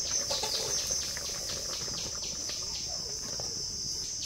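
An insect chirring steadily in a high, thin buzz that pulses about five times a second.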